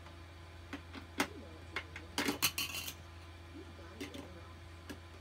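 Scattered light clicks and clinks of small hard objects being handled, with a quick run of clinking about two seconds in, over a steady low hum.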